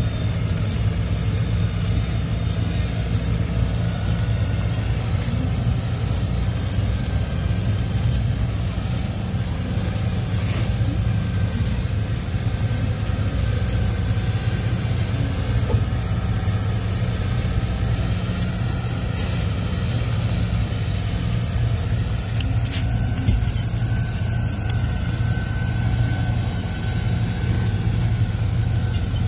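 Vehicle engines running with a steady low rumble.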